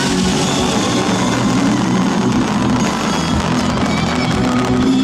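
Fireworks crackling and popping in rapid succession under loud music.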